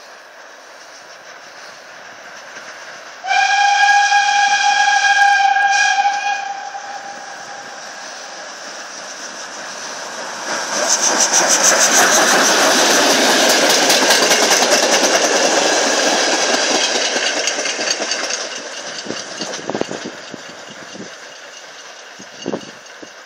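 Steam locomotive whistle giving one long blast of about three seconds, then the steam locomotive and its train passing close: a loud rush and clatter for about seven seconds that fades away.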